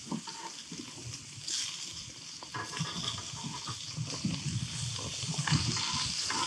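Meat sizzling and crackling on a hot grill, the sizzle described as grumbling. Low, gusty wind rumbles on the microphone, growing stronger partway through.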